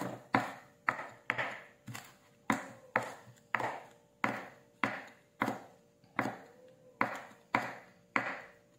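Chef's knife slicing spring onions on a wooden cutting board: the blade knocks the board in a steady rhythm, about two cuts a second.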